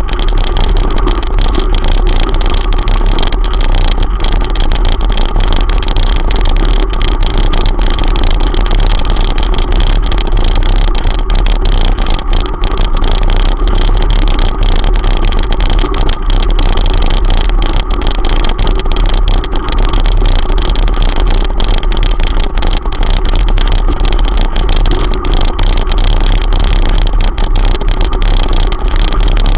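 Loud, steady rumble and rattle picked up by a handlebar-mounted camera while riding up a gravel track, with wind on the microphone and a scatter of small clicks and knocks from the stones.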